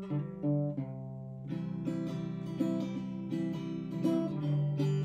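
Outro music on acoustic guitar: picked single notes, then fuller strummed chords from about a second and a half in.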